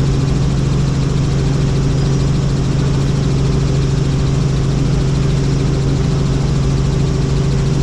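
Helicopter engine and rotors running with a steady drone and a constant low hum.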